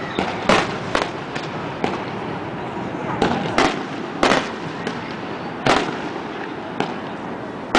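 Aerial fireworks bursting: a run of sharp bangs at uneven intervals, about nine in all, with a steady hiss of noise between them.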